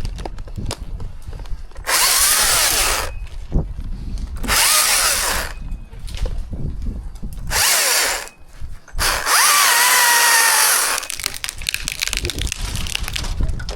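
Chainsaw running in four loud bursts of about a second each, the last nearly two seconds long, with lower engine noise between them.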